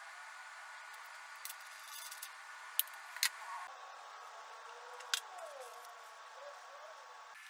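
Hand tools and wooden table legs being handled: a few light, sharp clicks and taps, the loudest about three seconds in and again about five seconds in, over a faint steady hum.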